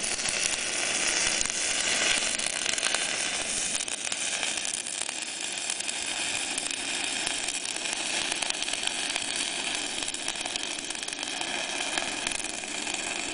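Stick-welding arc from a 2.5 mm coated electrode at 150 A on a Dedra DESI200 inverter welder, burning steadily as a bead is run on steel tube: a continuous crackling hiss that holds without a break.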